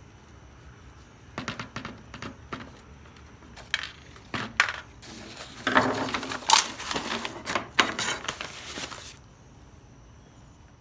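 Clicks and knocks of small hard objects being handled, with a busier stretch of clattering and scraping in the middle.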